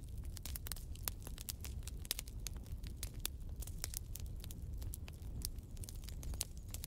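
Outro sound effect: irregular crackling over a steady low rumble.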